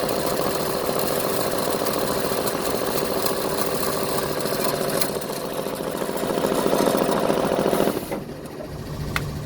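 A machine running with a harsh grinding noise, the fault the owner is showing. About eight seconds in the grinding stops abruptly, leaving a quieter steady hum, with a single click shortly after.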